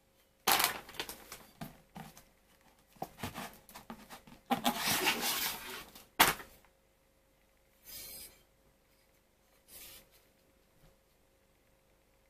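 Clear plastic bag and cardboard packaging crinkling and rustling as a bicycle handlebar is unwrapped. There are several seconds of dense, loud crackling with sharp peaks, then two short rustles.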